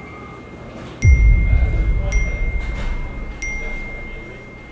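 Phone text-message notification chimes: a single high ping, three times over a few seconds. With the first one comes a loud deep low boom that fades away over about three seconds.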